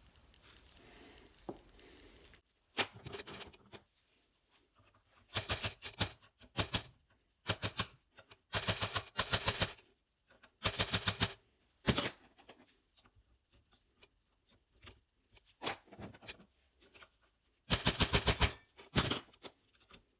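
Bursts of rapid metallic clicking and rattling, several in a row with pauses between, as the parts of a Subaru CV joint (inner race, cage and steel ball bearings) are worked and knocked against each other to free the balls.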